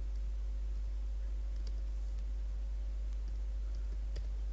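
Computer keyboard keys clicking faintly and irregularly as a terminal command is typed, over a steady low electrical hum.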